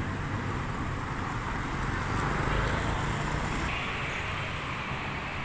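Road traffic: a vehicle engine running with a low hum over steady road noise, swelling slightly two to three seconds in.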